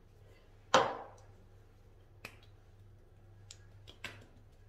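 A single sharp click about a second in, then a few faint clicks and taps, from skin-care bottles being handled and the product being put on by hand.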